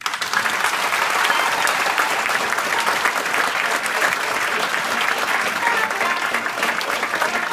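A large theatre audience applauding, starting suddenly and holding steady.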